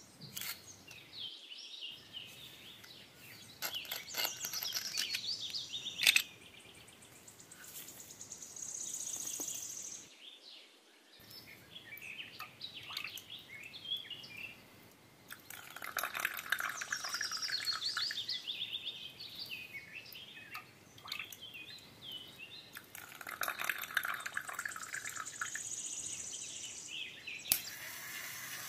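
Birds chirping and singing, with a sharp knock about six seconds in. Near the end a small geared motor starts up and runs steadily.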